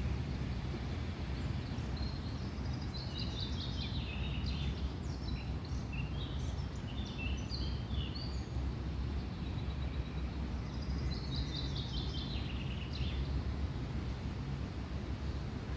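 A songbird singing quick series of high notes that step down in pitch, in two spells with a short gap between them, over a steady low rumble of outdoor background noise.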